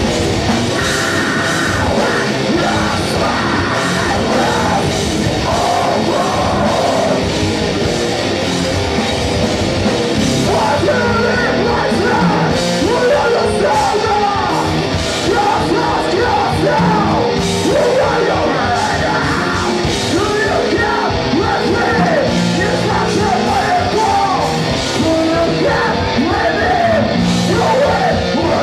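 Metalcore band playing live: loud heavy guitars and drums with harsh yelled vocals over them.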